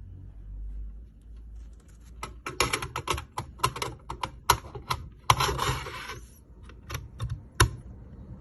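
Rapid irregular clicks and taps with a short scrape in the middle: an SSD being handled in and out of its drive bay. The clicks start about two seconds in and end with one last sharp click near the end.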